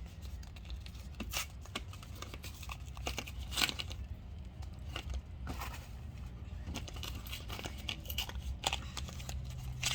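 Small cosmetics packaging being handled and opened: paper and plastic crinkling and tearing, with scattered short clicks and rustles, as a lip gloss is worked out of its box.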